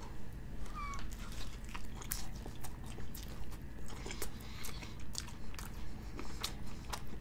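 Close-up mouth sounds of a person chewing a big bite of a cheese-covered bacon steak burger: wet smacks and irregular clicks.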